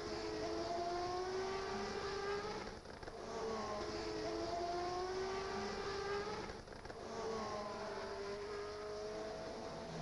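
Formula One racing engines running at high revs. The note climbs steadily and breaks off briefly twice, about three seconds and seven seconds in.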